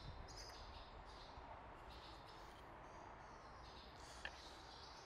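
Near silence: room tone with faint handling noise as a plastic motor housing is turned over in the hands, and one small click about four seconds in.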